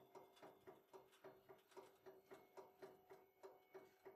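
Very faint background music: a ticking, plucked rhythm of about four beats a second over a steady tone.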